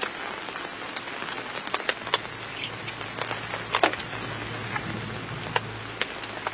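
Rain pattering on a camping tent, with irregular single drop taps over a steady hiss; a faint low hum comes in about two seconds in.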